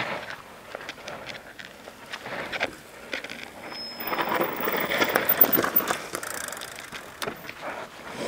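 Downhill mountain bike rolling over a rough dirt trail: tyre noise on dirt and stones with scattered clicks and rattles from the bike, loudest about four to six seconds in.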